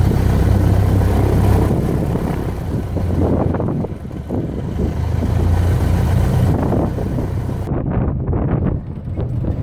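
Aviat Husky's freshly overhauled Lycoming O-360, a four-cylinder air-cooled aircraft engine, running steadily with the propeller turning. Near the end the sound changes abruptly to wind buffeting the microphone, with the engine further off.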